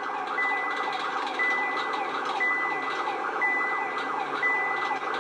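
Police car siren in a fast yelp, sweeping up and down about four times a second, with a high steady beep repeating about once a second.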